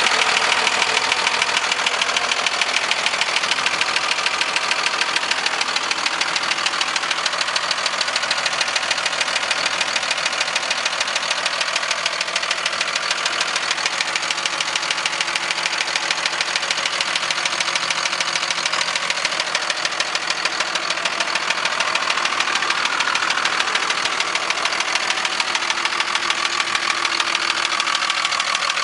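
2002 Dodge Ram's 5.9-litre Cummins inline-six turbo diesel running just after start-up, a fast, even clatter with a knock in it that the owner calls weird. The note rises slightly about two-thirds of the way through.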